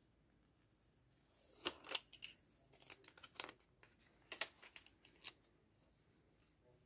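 Thermal-printer sticker paper being handled, peeled and pressed onto a journal page: a string of short, sharp paper crackles and rustles starting about a second in.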